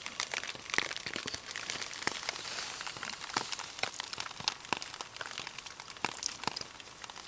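Rain falling, with heavy drops ticking irregularly close by, several a second, over a light hiss.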